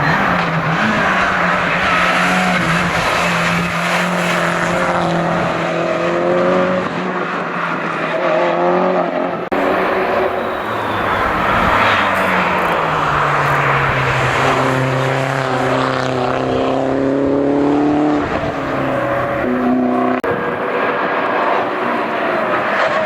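Hill-climb race car engine at full throttle, revving hard up through the gears; the note climbs and drops back at each gear change several times.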